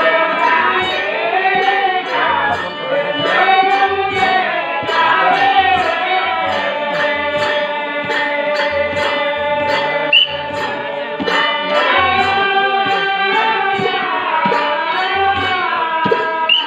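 Live stage-play music: a singer's voice carried over a harmonium's held notes, with a drum keeping a steady beat about once a second.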